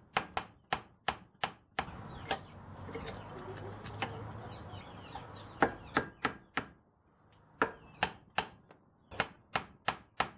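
Hammer tapping on a tool held against a seized cast-iron brake caliper from a 1992 Toyota pickup, working to free a stuck piston. Sharp metal strikes come about two to three a second, with a pause of a few seconds in the middle.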